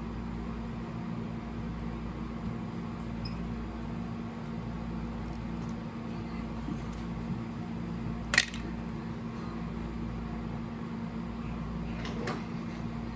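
Steady low hum of room noise, with one sharp click a little past the middle and a fainter click near the end.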